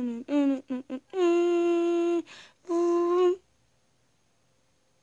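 A voice humming: a few short notes, then a long steady held note of about a second and a shorter one, breaking off about three and a half seconds in.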